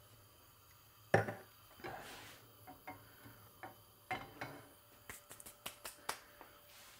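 A sharp knock about a second in, then a few light handling knocks. Around five seconds in comes a quick run of light hand claps as flour is dusted off the hands.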